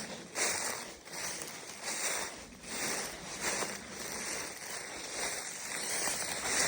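Footsteps of someone walking outdoors, about two steps a second, with a rustling noise that becomes steadier later on.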